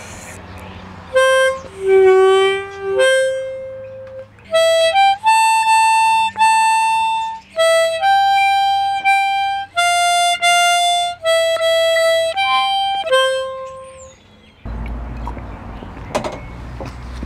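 A small harmonica playing a slow tune of single held notes, one of them wavering in pitch near the start. The tune stops near the end, giving way to a low rumble and a few knocks on the microphone.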